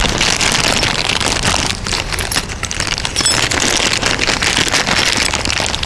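A small clear plastic zip bag of bolts and washers crinkling and rustling in the hands close to the microphone: a dense, continuous crackle of many tiny ticks.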